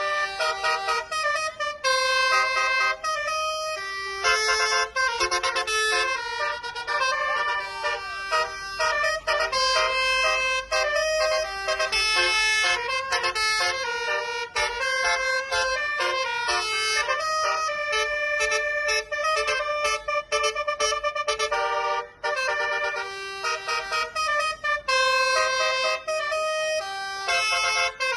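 Multi-trumpet telolet air horn with nine trumpets playing a tune, its notes stepping quickly from one pitch to the next, with a few short breaks between phrases.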